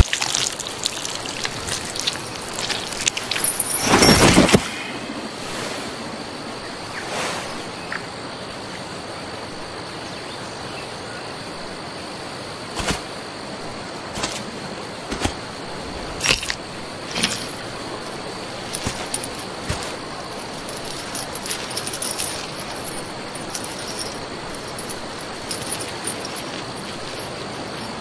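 Quiet outdoor ambience with a steady high hiss, a loud impact about four seconds in, and scattered light metallic clinks of chain.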